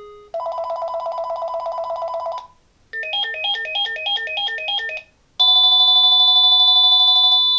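Panasonic KX-TG5439 cordless phone playing three of its electronic ringer tones in turn, each about two seconds long with short gaps between them. First comes a fast warbling trill, then a two-note beeping figure repeating about three times a second, then a steady held tone that runs on past the end.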